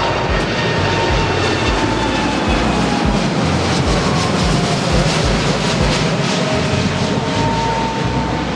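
Jet airliner's engines running loud and close: a steady rush of noise with high whining tones that slowly fall in pitch.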